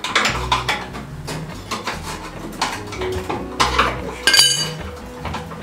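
Steel hand tools (ratchet, wrenches, sockets) clinking and clanking against each other and against the car's front suspension parts as they are picked up and used. There is a string of short knocks, with one ringing metal clang about four seconds in.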